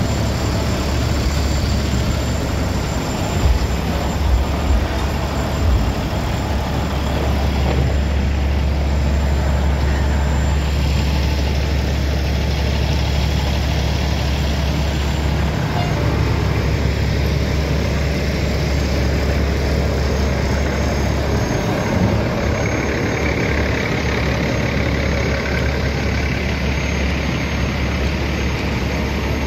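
Heavy semi-truck diesel engines idling close by, a steady low rumble, with a few short knocks about four to six seconds in.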